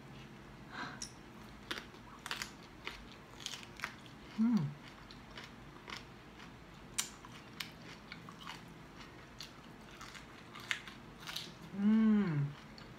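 Crunchy chewing and biting of raw bok choy leaves, with crisp crackles scattered throughout. Twice a short closed-mouth 'mmm' hum rises and falls, the louder one near the end.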